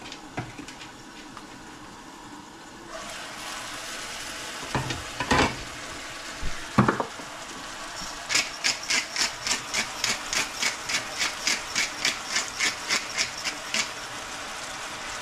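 Chicken adobo simmering and sizzling in a skillet on a portable gas burner, the sizzle growing louder about three seconds in. Two loud knocks follow around five and seven seconds, then a fast run of short scraping rasps, about three a second for some six seconds.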